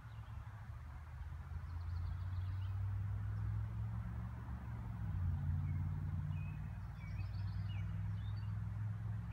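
Low, steady drone of an unseen engine running, swelling about two seconds in, with a few faint bird chirps over it.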